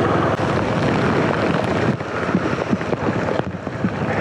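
Steady rushing wind noise on the microphone of a motorcycle riding through heavy rain, mixed with the sound of the bike and the wet road. The rushing eases a little about two seconds in.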